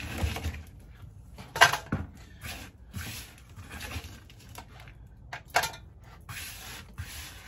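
Pieces of split candle wax dropped into a small metal pot on a digital scale: a few sharp clattering knocks, the loudest about one and a half seconds in and another near the end, with hands rustling and scraping wax pieces on the table between.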